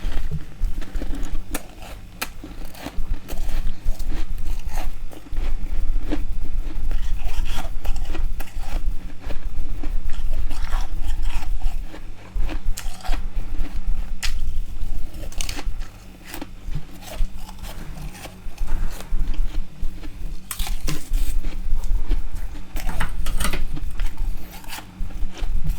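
Close-miked crunching and chewing of frost ice: dense, irregular crackling crunches as mouthfuls of frost are bitten and chewed, with a few quieter spells between bites.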